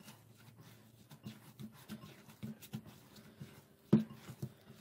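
Hands squeezing and kneading grated boiled potato mixed with green chillies and coriander in a glass bowl: soft, rhythmic squishes about three a second, with one louder squish about four seconds in.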